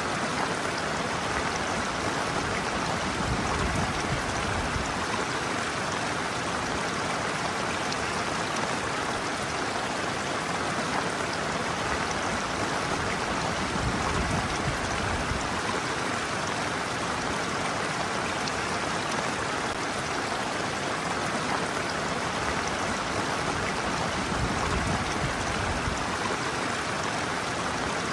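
Shallow stream water running steadily over a sloping bed and around a person's feet, an even rushing splash.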